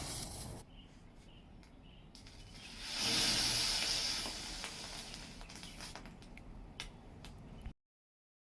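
Homemade potassium chlorate and sugar firework composition hissing as it burns: a hiss that fades within the first second, flares up loudly again about three seconds in, then dies down with a few crackles before the sound cuts off abruptly.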